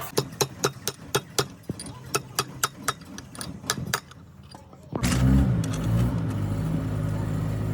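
Sharp metallic taps, about three or four a second, then a brief lull. About five seconds in, a Komatsu bulldozer's diesel engine starts and settles into a steady low idle.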